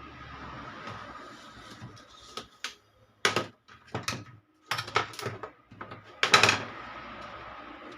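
A run of about six sharp knocks and clicks over a steady hiss with a faint high tone; the loudest comes about six seconds in.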